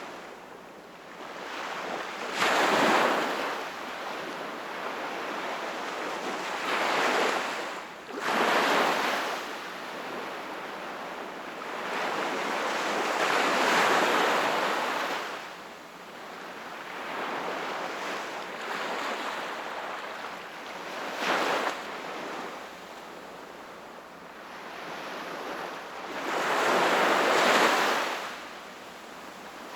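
Sea waves washing onto the shore, swelling and falling away in about five surges, one every four to six seconds, with the loudest near the end.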